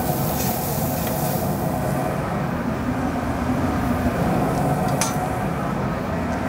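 Steady hum and rumble of a food truck's kitchen machinery, such as the exhaust hood fan and fryer. A single light click about five seconds in, as metal tongs go into a plastic tub.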